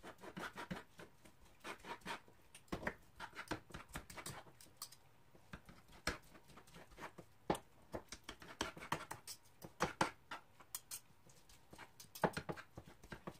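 Metal fork scraping and tapping on a cutting board while shredding cooked chicken breast: a long run of irregular clicks and short scratches.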